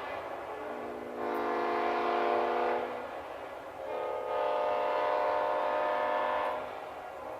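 Multi-chime locomotive air horn blown in long chord blasts. The chord swells louder about a second in and again around four seconds in, while its lower notes keep sounding in between.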